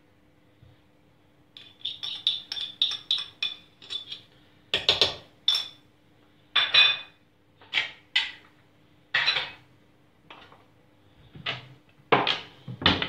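Dishes and kitchenware handled at a counter: a quick run of light clinks, about five a second, then a string of louder separate knocks and clatters as things are picked up and set down. A faint steady hum lies underneath.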